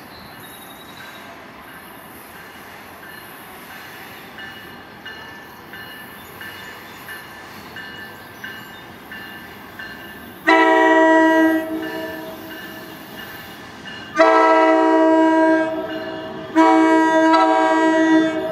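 An approaching commuter train's horn blows three loud blasts of a multi-note chord, the first about a second and a half long and the next two about two seconds each. Before the horn there is a faint rumble with soft ticks at an even pace.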